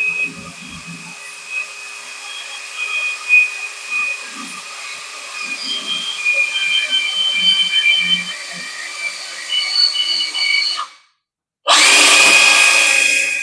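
Cordless DeWalt brushless hammer drill running, with a high whine that wavers in pitch. It cuts out about eleven seconds in, and after a brief silence a louder, harsher drill run starts.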